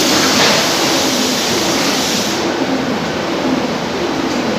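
Veneer peeling and stacking line running: steady, loud machine noise with a low hum. An extra high hiss drops away about halfway through.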